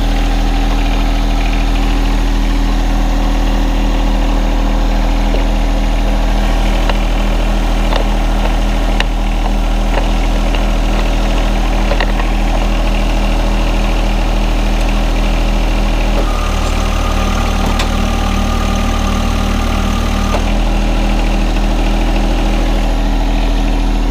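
John Deere 1025R compact tractor's three-cylinder diesel idling steadily. Its note changes for about four seconds past the middle, and a few light clicks are heard near the middle.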